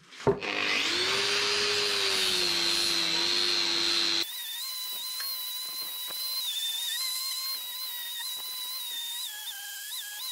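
Angle grinder with a sanding disc switched on with a click and speeding up to a steady whine. About four seconds in the sound changes suddenly to the grinder running more quietly as the disc works the bronze sword blade, its pitch wavering and dipping briefly under load near the end.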